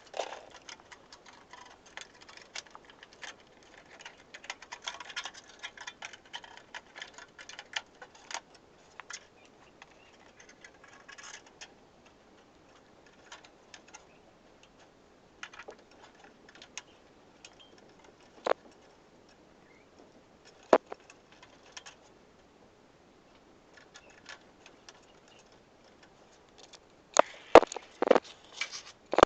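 Hands working inside an open PC case, moving cables and fitting a graphics card into its slot: scattered clicks, taps and light rattles of plastic and metal, busiest at first, with a few single sharp clicks and a cluster of louder knocks near the end.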